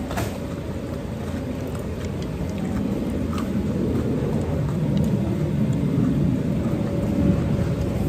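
Steady low rumbling outdoor background noise, slowly growing louder, with a few light clicks.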